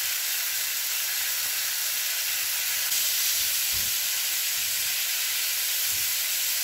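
Marinated chicken pieces sizzling steadily in hot oil in a frying pan, with a few soft knocks as the pieces are turned over with tongs.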